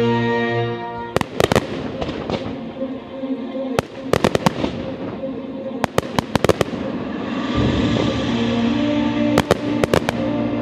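Aerial firework shells bursting in four quick volleys of sharp bangs and crackles, over music played with the show.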